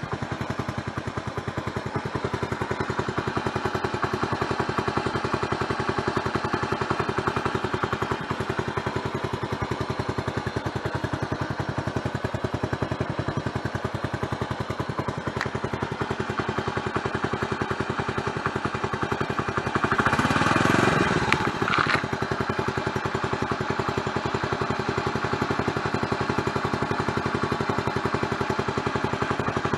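Exhaust of a 1993 Honda Super Cub 90 DX's single-cylinder four-stroke engine running steadily through an Outstanding monaka-type aftermarket muffler with its silencer insert fitted, a quick even pulse. About twenty seconds in, a louder rush of sound lasts about two seconds.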